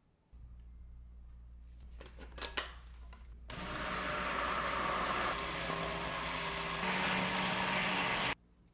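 Stainless steel stick blender running in a glass bowl of melted coconut oil and lye solution, churning the liquid for about five seconds to emulsify it into soap batter, then cutting off abruptly. Before it comes a low steady hum and a few sharp clicks.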